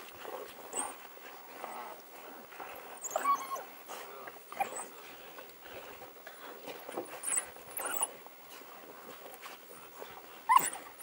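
A pack of African wild dogs giving short whining, twittering calls as they mob a warthog at its burrow. The calls come in quick, separate bursts throughout, with a louder, sharper cry near the end.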